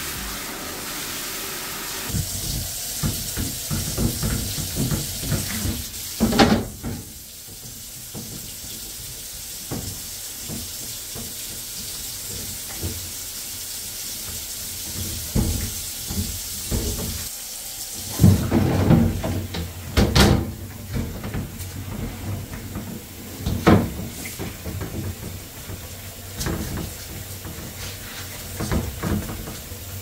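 Glass refrigerator shelves and plastic crisper drawers being washed by hand in soapy hot water: sloshing, splashing and scrubbing, with irregular knocks of glass and plastic. A steady hiss of water runs for the first few seconds and again from about halfway.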